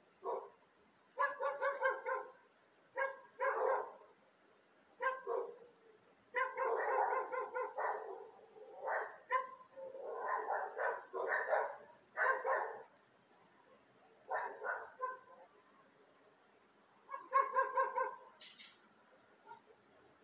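A dog barking in clusters of several quick barks, with short pauses between the clusters.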